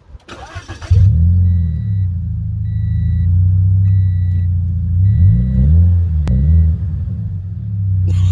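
Subaru BRZ's flat-four boxer engine through an Invidia N1 cat-back exhaust: a brief burst as it is started, then the engine catches about a second in and settles into a loud low rumble, with the revs blipped up and back down a few times. A car warning chime beeps about once a second for several seconds over it.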